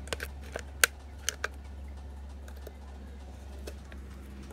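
Thin plastic water bottle clicking and crinkling as it is handled and hooked onto a brake caliper's bleeder valve: a cluster of short sharp clicks in the first second and a half, sparser after, over a steady low hum.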